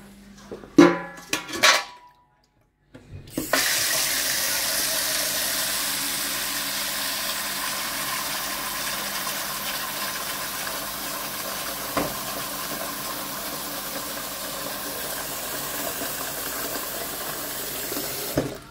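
Kitchen tap running steadily into a stainless steel dog bowl set in a steel sink, filling it with water; the flow stops just before the end. A few short, loud clatters come about a second in.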